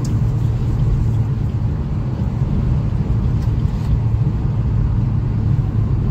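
Maruti four-cylinder petrol car heard from inside the cabin at high speed during a drag race: a steady low engine drone mixed with road and wind noise.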